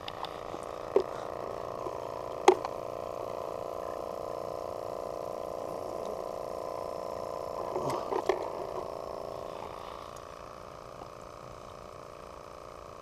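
A few sharp knocks and clicks of fishing gear being handled while someone moves about on the bank, the loudest about two and a half seconds in. Under them is a steady hum that fades away after about ten seconds.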